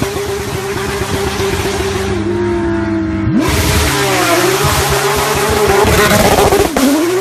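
Porsche 911 race cars' flat-six engines running hard as they pass at speed. The engine pitch dips and climbs back up twice, about a third of the way in and again near the end.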